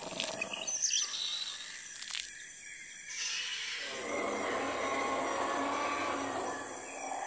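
Jungle ambience sound effect: short bird chirps over a steady high insect buzz, with a fuller background layer fading in about four seconds in.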